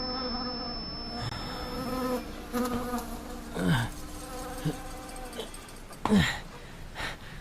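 A recording presented as the 'sound of hell' (the Kola well legend): a drone of several steady tones, broken by short falling swoops about four and six seconds in.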